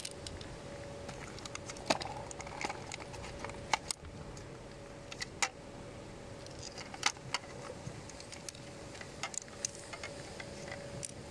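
Plastic housing parts of a Dyson Motorhead direct-drive brush head being handled and pulled apart. Scattered light clicks and knocks of plastic against plastic.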